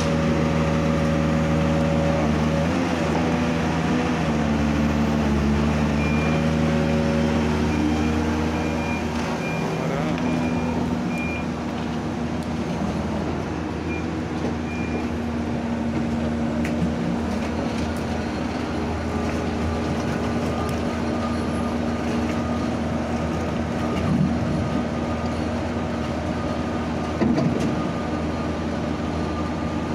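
Diesel engines of heavy earthmoving machinery running steadily, their pitch shifting in the first ten seconds as they work. A string of short, evenly spaced high beeps sounds about 6 to 15 seconds in, and a single louder knock comes near the end.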